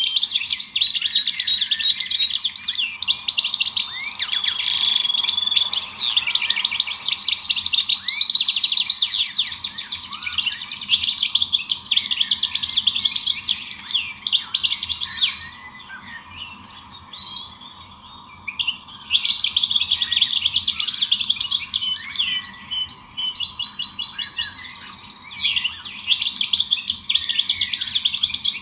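Many small songbirds chirping and twittering at once in a dense, overlapping chorus of quick high notes and trills. About halfway through it thins out for a few seconds, then picks up again.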